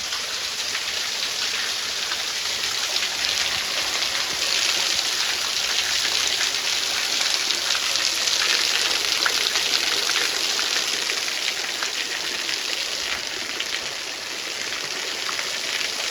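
Water of a small waterfall coming down close by: a steady splashing hiss with a patter of drops, a little louder in the middle.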